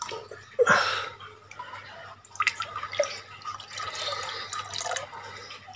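Water splashing and dripping as a small hand net is dipped in and lifted out of a shallow fish tank to scoop up fry. A louder splash comes just under a second in, then a few sharp drips and trickling.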